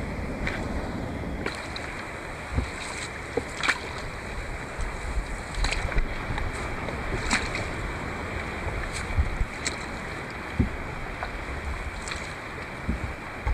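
Paddling on the open sea: a steady wash of wind and water with scattered splashes, drips and low knocks of paddle strokes every second or two.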